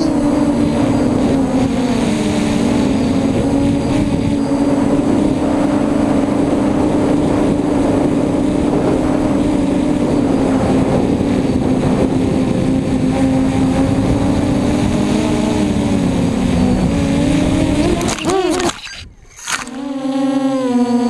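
Custom F330 quadcopter's electric motors and propellers whining steadily in fast flight, the pitch wavering with throttle, heard through the onboard camera with wind noise. Near the end the sound bends and cuts out for a moment before a steady tone returns.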